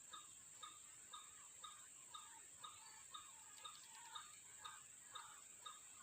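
White-breasted waterhen (ruak-ruak) calls, faint: a short call repeated evenly about twice a second, over a steady high-pitched drone.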